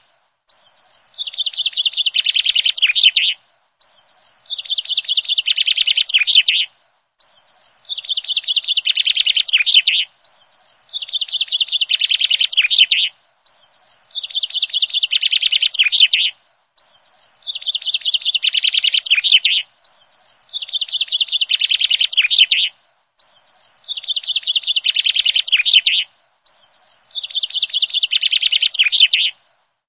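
Looped bird-chirping sound: the same rapid, twittering phrase, about three seconds long, repeats nine times, each time cutting off suddenly into a short silence.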